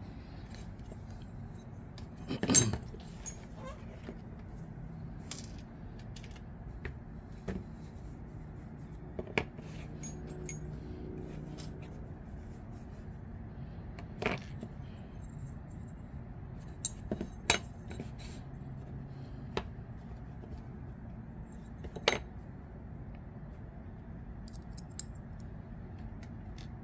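Small metal folding-knife parts, the liners and screws, clicking and tapping now and then as they are handled and set down on a leather mat. The loudest knock comes about two and a half seconds in.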